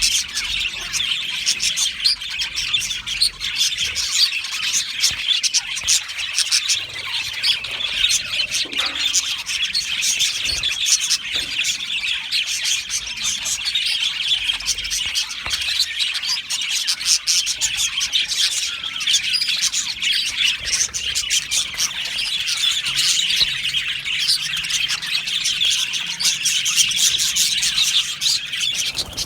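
Budgerigars chattering with dense, rapid chirps and warbles, many calls overlapping without a break.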